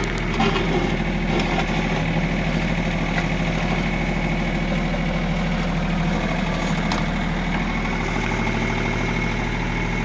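A John Deere compact tractor's diesel engine runs steadily at a constant speed while it powers the backhoe digging the trench. A steady high whine runs alongside it, and there are a few faint knocks from the bucket working.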